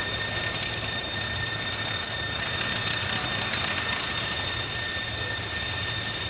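Steady outdoor background hiss with a constant high-pitched whine running through it.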